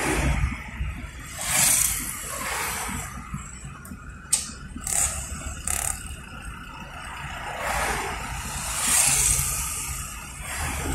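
Road and traffic noise heard from inside a moving car in city traffic, rising and falling in swells, with a sharp click about four seconds in.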